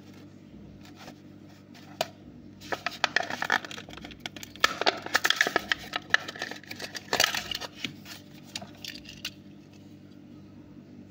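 Clear plastic blister pack being torn off its cardboard backing card, a flurry of crackling and crinkling for about six seconds.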